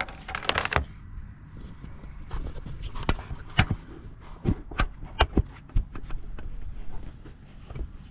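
A brief rustle, then a scattered series of sharp light clicks and knocks from hands and multimeter probes working around a car battery under the hood, over a low steady background rumble.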